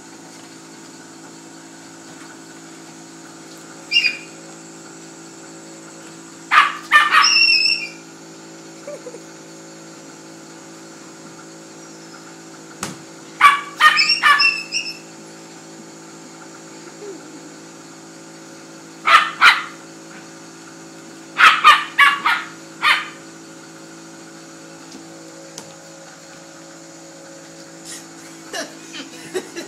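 Small dog barking and yipping in short bouts every few seconds, some single and some in quick runs of several, over a steady background hum.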